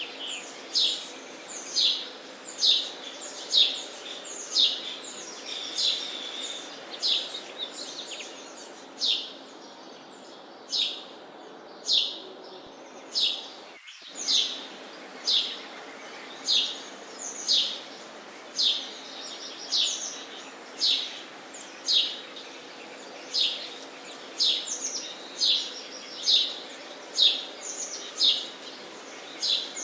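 Sparrow chirping steadily: short, sharp chirps repeated about once a second, over a steady background hiss.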